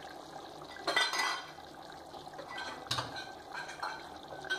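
Wooden spoon stirring thick chicken gravy in an aluminium pressure cooker, knocking and scraping against the pot. There is a loud clatter about a second in, and single knocks near three seconds and near the end.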